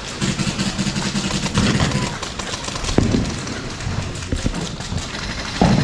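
Airsoft guns firing in rapid full-auto bursts, a fast rattle of shots, with a string of about eight shots a second near the end.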